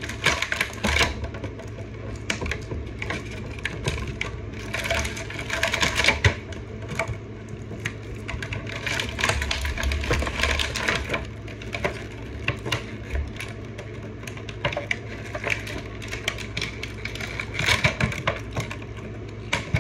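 Plastic action-figure packaging being handled: a plastic tray and cardboard box crinkling and clicking in irregular bursts as small accessory hands are pried out.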